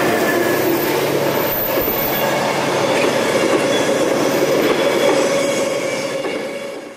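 Conrail freight train's autorack cars rolling past at close range: steady noise of steel wheels running on the rails, with a steady squeal in it. It fades out near the end.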